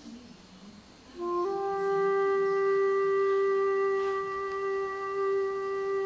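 Background music: a woodwind, flute-like, comes in about a second in and holds one long steady note.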